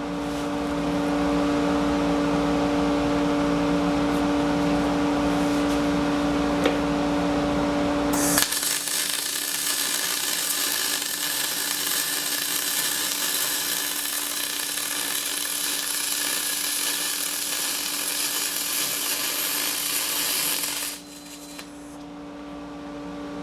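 MIG welding aluminum with a spool gun (Tweco spool gun on a Thermal Arc 211i): a steady hum and low rumble, then about eight seconds in a bright, steady arc hiss starts suddenly and cuts off abruptly near the end. It is a practice bead on scrap run at a raised heat setting, after the previous bead came out lumpy ('caterpillared') at too low a heat.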